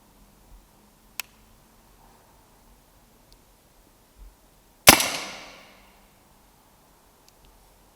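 Brocock Ranger XR pre-charged pneumatic air rifle firing a single shot about five seconds in: a sharp crack that rings on and fades over about a second. A short, sharp click comes a little over a second in.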